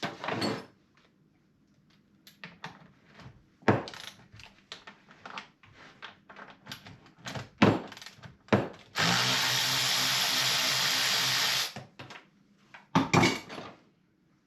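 Clatter of handling knocks and clicks, then a battery-powered Milwaukee M18 top-handle chainsaw runs steadily for about three seconds, free-running with no load on its newly fitted chain, and stops suddenly; a few more knocks follow.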